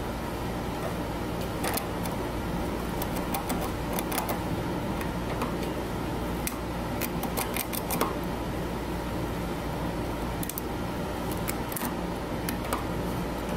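Chinchilla gnawing on a cholla wood chew stick: irregular runs of small sharp crunching clicks with pauses in between, over a steady background hum.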